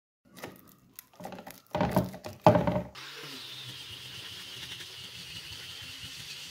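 Sandpaper discs being handled: rustling with a few loud knocks and scrapes, the loudest about two and two and a half seconds in. Then, about three seconds in, an angle grinder fitted with a hook-and-loop sanding pad and disc starts running steadily, sanding a wooden board.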